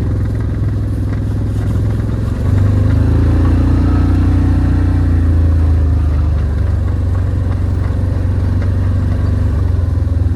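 A vehicle engine running steadily with a low hum. It gets louder about two and a half seconds in and eases back a little around six and a half seconds.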